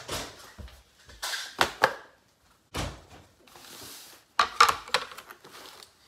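Groceries being handled in a kitchen: a string of knocks and thuds, with rustling between them, the sharpest clicks and knocks coming about four and a half seconds in.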